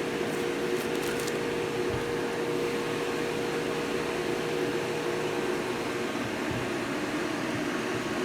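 Cooling fan of an APT 250-amp DC inverter welding machine running steadily while the machine is switched on but not welding: an even whir with a faint steady hum in it.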